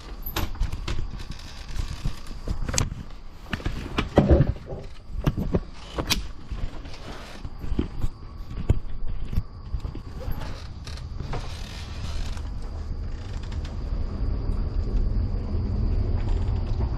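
Irregular knocks and creaks of a person moving about in a house, over a low rumble that becomes steady in the last few seconds.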